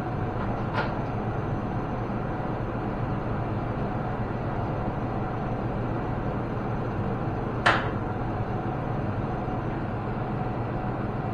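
Steady low machine hum with two sharp metal knocks: a light one about a second in and a louder one near eight seconds.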